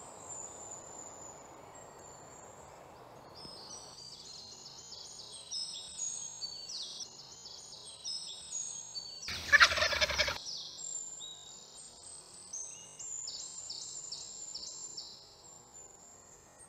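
Wild birds chirping outdoors, with many short, high, falling notes one after another. About halfway through comes a single loud, rattling call lasting about a second.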